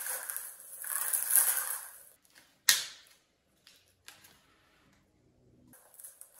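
Bubble wrap crinkling and rustling as it is pulled off a cardboard box, with a single sharp snap midway. Then faint scraping and rustling as a small knife slits the packing tape and the box flaps are opened.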